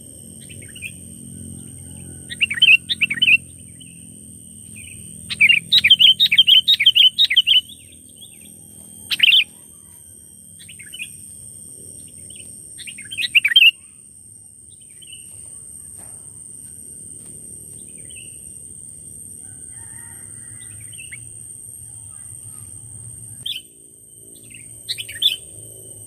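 Songbird chirps in short bursts: a bird-lure recording of sooty-headed bulbul calls mixed with prinia song, with a rapid run of chirps from about five to seven seconds in and single calls after. A steady high-pitched whine sits behind them.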